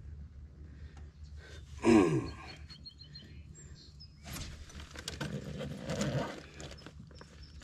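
A man's short, loud exclamation falling in pitch about two seconds in. Then a couple of seconds of rustling and handling noise as he holds a largemouth bass and digs into a backpack, with a steady low hum underneath.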